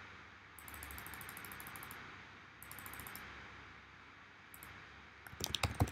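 Computer mouse and keyboard being worked: two short runs of rapid, evenly spaced ticks in the first half, then a cluster of louder, sharper clicks near the end.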